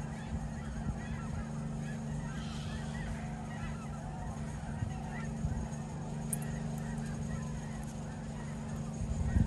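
A flock of geese honking, many overlapping calls without pause, over a steady low hum.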